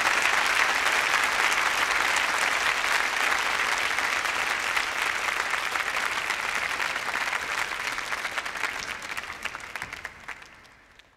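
Audience applauding after a yodel song, the clapping slowly fading away near the end.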